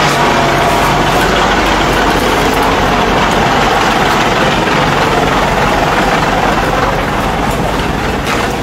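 Military cargo truck's engine running steadily, heard up close.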